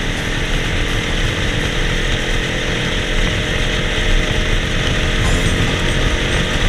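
Go-kart engine running steadily as the kart drives down the track, heard up close from the driver's seat.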